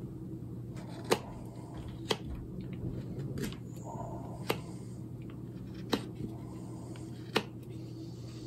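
A knife cutting seasoned ash: six sharp clicks, about a second or so apart, as cuts snap through the wood of a carved spoon, over a steady low hum.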